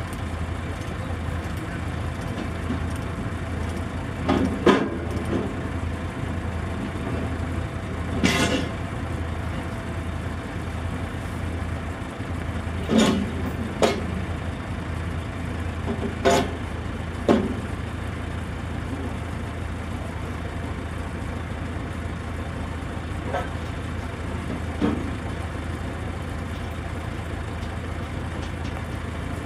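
A heavy engine idling with a steady low drone, and about eight sharp knocks and clanks scattered through it from work on the trailer beneath the locomotive.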